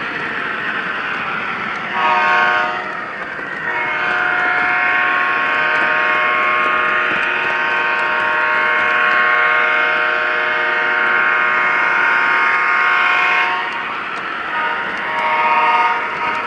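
Multi-note diesel air horn sounded by an O scale three-rail model locomotive's onboard sound system: a short blast, a long blast of about ten seconds, then two short blasts near the end, over the steady running noise of the train.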